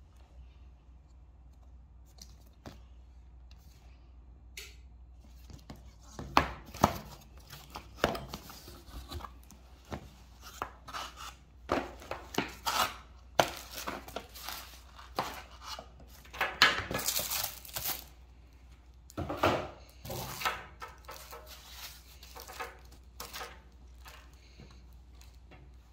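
A puzzle-mat kit being unboxed by hand: a run of knocks, scrapes and rustles as the cardboard box is handled and the felt mat, fabric storage bag and plastic-wrapped parts are pulled out, with a longer rustle about seventeen seconds in.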